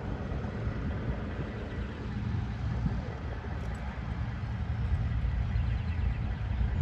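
Low, steady rumble of heavy-haul diesel trucks pulling and pushing a 900,000-pound super-load slowly along the road.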